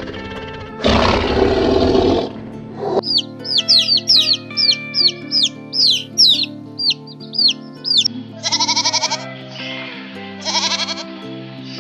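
A tiger roars once, about a second in; then baby chicks peep rapidly with short, high, falling chirps; then a young goat bleats twice with a quavering call near the end. Background music plays throughout.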